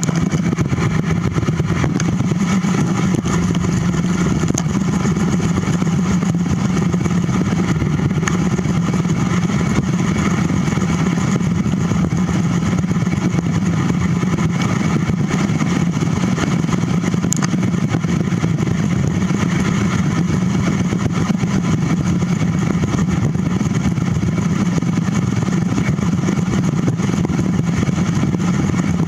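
Steady rush of wind and road rumble on a bicycle-mounted camera's microphone while riding at speed on a paved trail.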